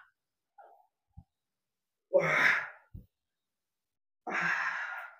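A man's breathy, pained exhalations, twice, about two seconds apart, with a faint knock between them.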